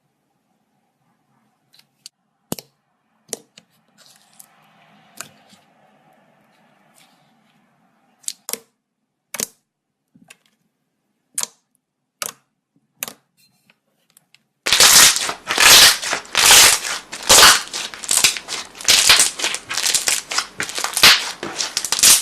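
Homemade slime being handled and squished: scattered sharp clicks and pops, then about two-thirds in a dense, loud run of squishing, crackly bursts, two or three a second.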